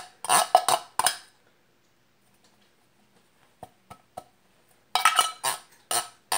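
A utensil scraping the inside of an opened tin soup can, clearing out leftover chicken noodle soup: a few quick scrapes at the start, a pause with a few faint taps, then a quicker run of scrapes in the second half.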